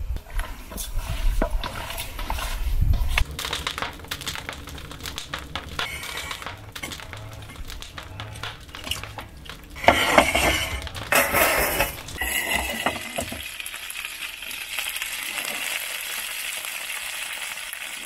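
Seasoned raw chicken wings being stirred and handled in a metal bowl, with scattered clicks and knocks. Then chicken wings sizzle in a pan in a wood-fired oven, a steady hiss over the last several seconds.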